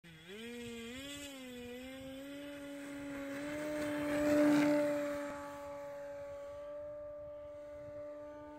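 Cobra 850 kV brushless electric motor and propeller of a radio-controlled Pitts Special biplane whining at takeoff power. The pitch rises and wavers over the first two seconds as the throttle comes up, then holds steady. It is loudest about halfway through, then fades as the plane climbs away.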